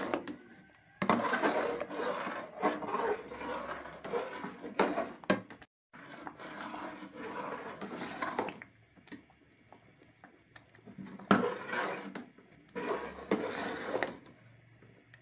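A spoon stirring and scraping through thick carrot-and-rice milk pudding (gajrela) in a metal pot, with uneven scrapes and light clinks against the pot. The sound drops out briefly just before six seconds in and is quieter for a stretch later on.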